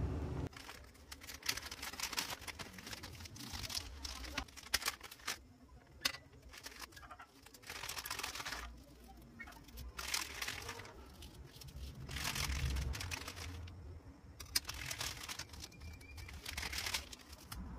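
Clear plastic zip-lock bags crinkling as they are picked up and handled, in irregular spells of rustling every second or two with a few sharp clicks, over a steady low rumble.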